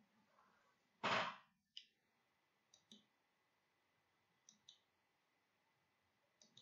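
Computer mouse button clicked three times, each a quick double tick of press and release, spaced about one and a half to two seconds apart. A louder short rush of noise comes about a second in, followed by a single click.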